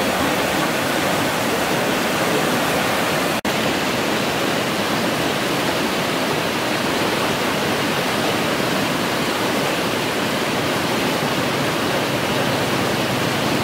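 Floodwater rushing over a low concrete dam spillway: a loud, steady whitewater rush, broken by a momentary dropout about three and a half seconds in.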